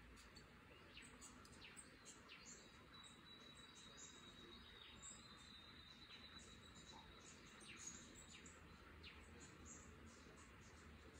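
Faint forest ambience with scattered bird chirps and calls throughout, several of them quick downward-sweeping whistles. A thin, steady high whistle holds for a few seconds in the middle.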